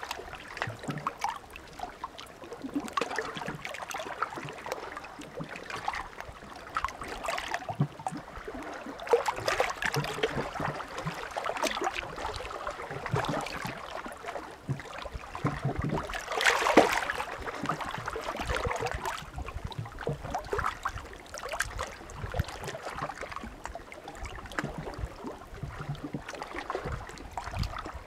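Small sea waves lapping and splashing on the shore in a steady irregular wash, with one louder splash about two-thirds of the way through.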